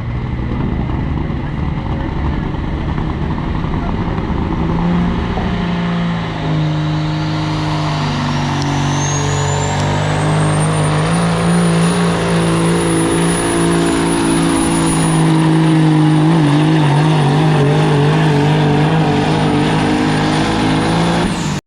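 Semi truck's diesel engine running flat out under load while pulling a weight sled. A turbocharger whistle climbs over a few seconds and then holds high. The sound cuts off suddenly at the end.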